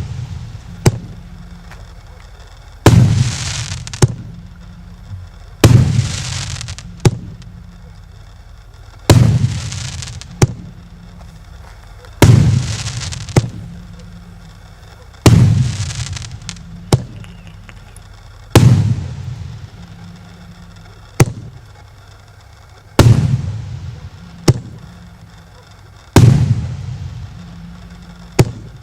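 1.6-inch consumer fireworks battery (a 30-shot cake) firing its shots one after another, about one every three seconds: a sharp launch thump, then a loud aerial burst with a fading tail.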